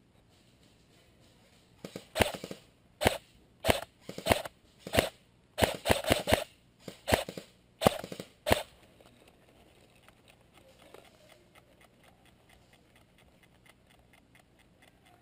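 Airsoft rifle firing single shots: about a dozen sharp cracks in irregular quick succession, some close pairs, starting about two seconds in and stopping after about seven seconds.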